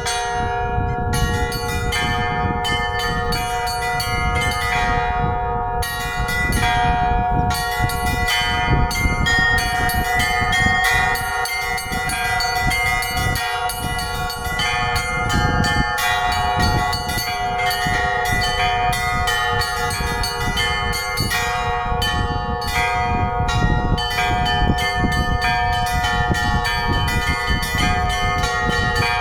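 Church bells ringing a continuous peal: several bells of different pitches struck in quick succession, their tones ringing on and overlapping.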